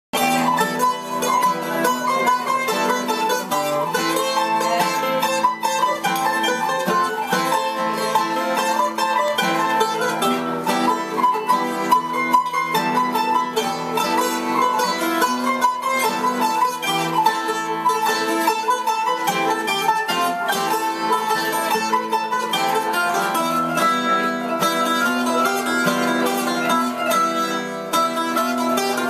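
Instrumental trio of plucked strings playing a tune together: a round-backed lute, a lap-held zither and an acoustic guitar, played live in the room.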